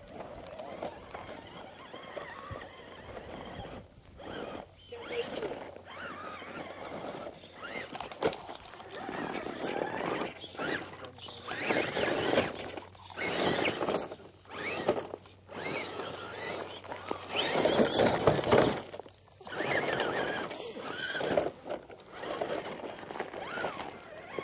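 Electric motor and gear drivetrain of an Axial Jeep Wrangler Unlimited Rubicon R/C crawler whining in repeated bursts as it crawls over loose rock, the pitch rising and falling with the throttle. The loudest bursts come past the middle.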